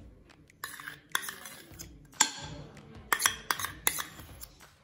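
A metal spoon clinking and scraping against a steel bowl and the kadhai while ghee is scooped out of the bowl into the pan. A string of short sharp clinks, the loudest a little over two seconds in.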